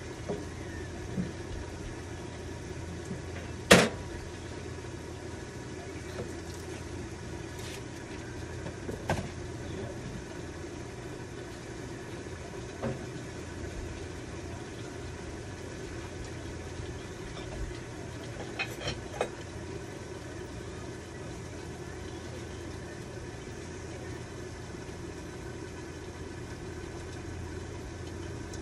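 Chicken curry simmering under a glass lid in a frying pan over a steady low hum, with a few sharp clicks: the loudest about four seconds in, more near nine and thirteen seconds, and a quick pair near nineteen seconds.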